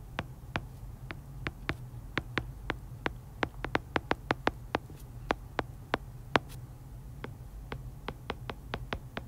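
Stylus tip tapping and clicking on an iPad's glass screen during handwriting: a run of sharp, irregular ticks, several a second and thickest around the middle, over a low steady hum.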